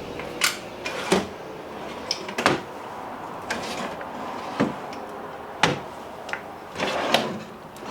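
Kitchen drawers in an RV being pulled open and pushed shut: a handful of sharp knocks and short slides, spaced a second or so apart.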